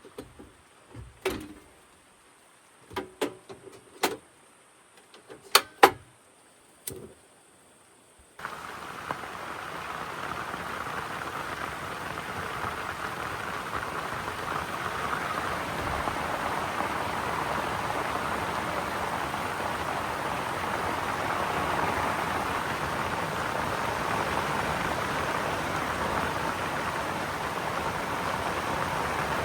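A few scattered knocks and clicks, then about eight seconds in a steady hiss of heavy rain starts abruptly and keeps on.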